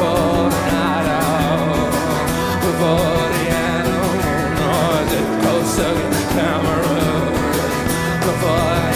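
Rock band playing live: a male voice singing over a fast, steady drum beat, bass and guitar.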